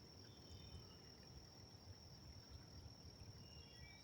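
Near silence: a faint, steady high-pitched insect drone, with a few faint short bird chirps.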